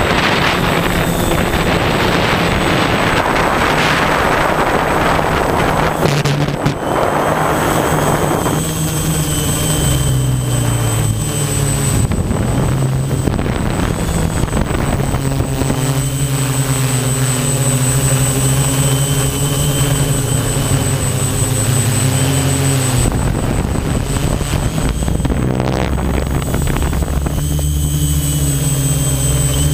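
Quadcopter drone's electric motors and propellers buzzing steadily, heard from the camera mounted on the drone. The pitch shifts as the motors change speed, about twelve seconds in and again a little after twenty seconds. For the first eight seconds or so, wind rushes over the microphone.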